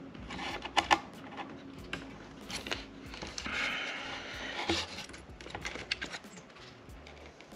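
Scattered small clicks, taps and scraping of hard plastic and metal computer parts being handled and pressed into place on a motherboard, with a longer scrape or rustle near the middle.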